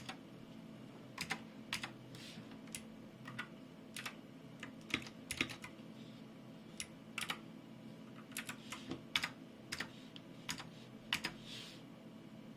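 Keycool 84 2S mechanical keyboard with Gateron Blue clicky switches being typed on: irregular keystroke clicks, a few a second with short pauses.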